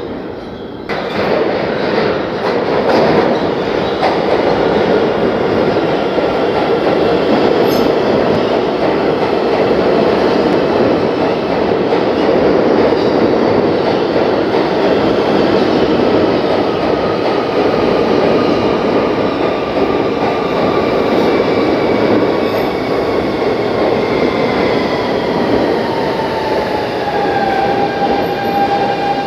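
New York City subway train entering the station about a second in and running along the platform as it slows. Loud rumble of wheels on rails, with the propulsion motors' whine gliding steadily down in pitch as the train brakes.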